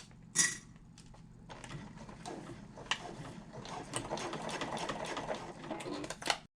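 Sewing machine stitching fast, topstitching through layers of a fabric bag handle; it starts about a second and a half in and stops abruptly near the end. A sharp click comes about half a second in, before the stitching starts.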